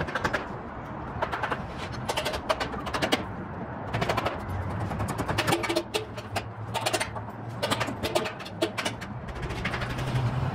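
Construction-site sound: irregular sharp taps and clanks, some in quick clusters, over a steady low hum.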